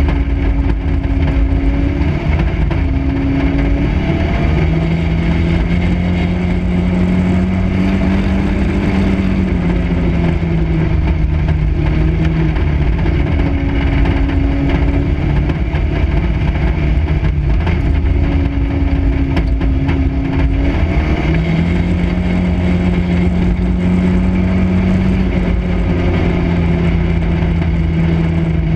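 Dirt-track race car engine at racing speed, heard from inside the cockpit over the rattle of the car. The engine note climbs and falls in long swells twice, rising under throttle and dropping as the car goes into a turn.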